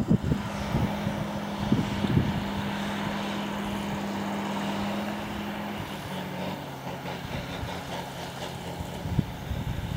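Crawler bulldozer's diesel engine running steadily, its pitch dropping about six seconds in as the sound slowly fades.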